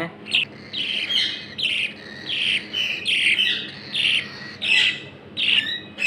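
Baby budgerigar chick calling in a quick run of short chirps, about two or three a second.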